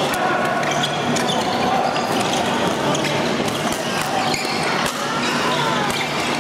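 Badminton rally: repeated sharp racket strikes on the shuttlecock, irregularly spaced, over steady background noise of a busy sports hall.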